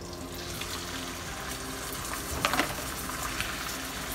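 Minced pork hitting hot oil in a non-stick wok and sizzling steadily. A few sharp clicks about two and a half seconds in.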